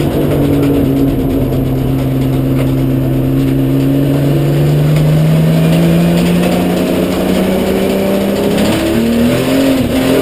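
Drift car's engine heard from inside the cockpit, held at high revs through a slide, its pitch sagging slowly and then holding steady. Near the end the revs waver up and down as the driver works the throttle.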